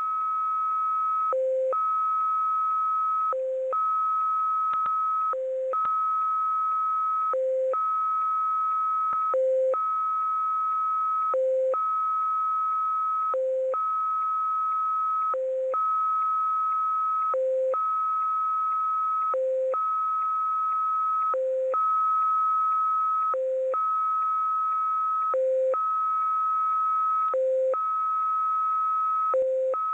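XPA Russian numbers station received on shortwave in USB, sending its start tones: a long high tone alternating with a short low tone, one cycle about every two seconds, over faint radio hiss.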